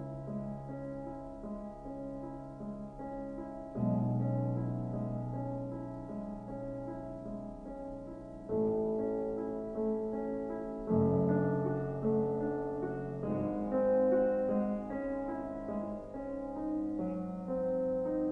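Slow piano music: held chords that change every few seconds.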